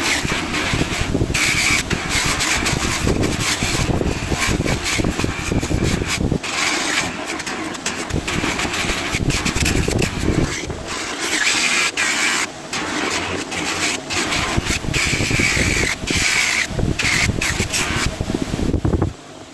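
Electric buffer running with a cast bronze piece held against the buffing wheel, a steady motor noise with a high whine that comes and goes as the piece is worked. It shuts off near the end.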